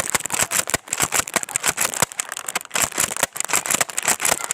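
Dense, rapid crackling and rustling close to the microphone, an irregular run of sharp clicks with no steady rhythm, like handling noise from the phone and blaster being moved about.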